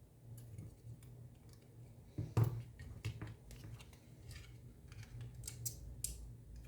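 Small sharp clicks and taps of plastic parts being handled and pressed together at close range, with one louder knock about two and a half seconds in and a quick run of crisp clicks near the end.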